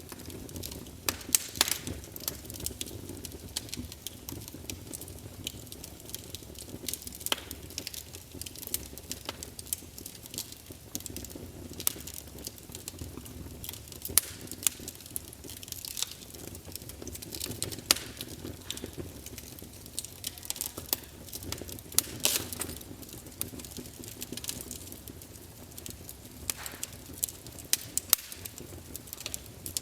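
Campfire burning: a steady low rush of flames with frequent irregular crackles and sharp pops of burning wood, a few of them louder snaps.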